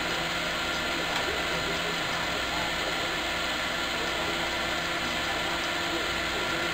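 Filament spool spinning freely on a ball-bearing spool holder, a steady, even whir.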